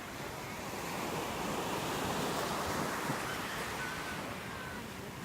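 Sea surf washing onto the beach: a steady rush of waves, with some wind on the microphone.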